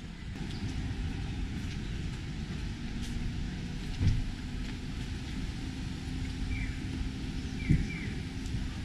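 Outdoor background noise: a steady low rumble with a faint steady hum. Two sharp thumps come about four and eight seconds in, and a few short high chirps near the end.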